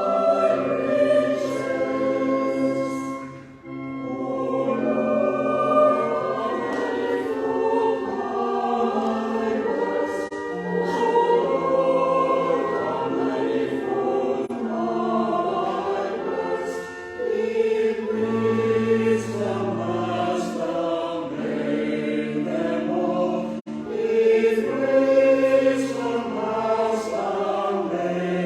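Church choir and congregation singing a hymn together, with long held low notes sustained beneath the voices; the singing briefly dips between lines twice.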